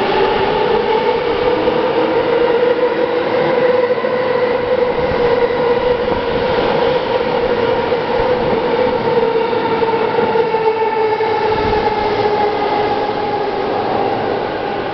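Electric commuter train running at an underground station platform: loud wheel and rail noise with a steady motor whine.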